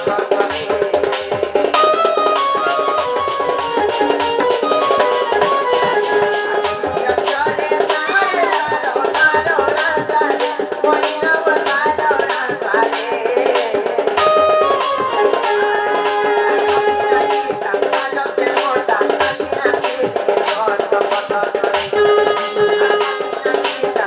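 Sambalpuri folk music for danda nrutya: fast, even drumming under a melody instrument playing held notes that step up and down.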